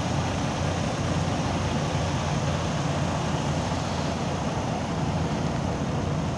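Idling diesel semi-truck engine: a steady low rumble that holds even throughout.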